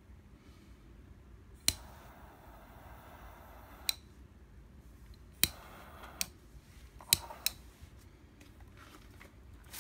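Double-jet butane torch lighter (Scorch Torch Orion) lit three times. Each time a sharp click is followed by the jet flames hissing and another click that ends it. The first flame lasts about two seconds, the second under a second and the last only a moment.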